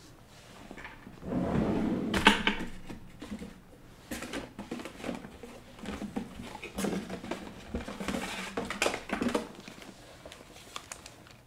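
Irregular clicks, taps and knocks from a computer keyboard and desk equipment being handled close to a microphone. A louder, denser spell of handling noise comes between about one and two and a half seconds in.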